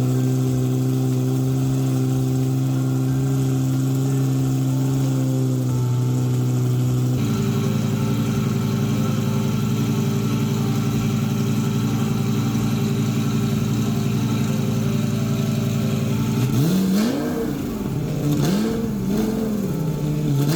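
Lamborghini Gallardo V10 running through its repaired stainless steel exhaust: a steady idle whose note shifts about seven seconds in, then blipped about three times near the end, each rev rising and falling quickly.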